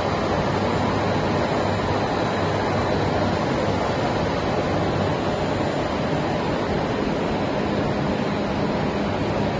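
JC-250 EPE foam sheet extrusion line running: a steady, even machine noise with faint low hums underneath and no change in level.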